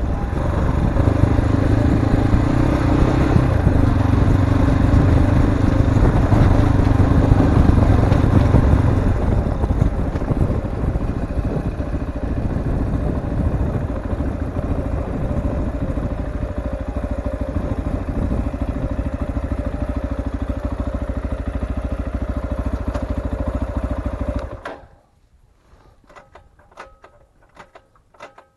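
Cyclone RX3's 250 cc single-cylinder engine running, louder for the first nine seconds or so and then steadier, before it stops abruptly a few seconds before the end. Faint light clicks follow.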